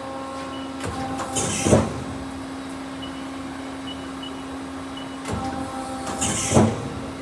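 Mori Seiki SL-35B NC lathe running with a steady hum. Twice, about five seconds apart, a mechanism on the machine cycles: a hiss that builds briefly and ends in a heavy clunk.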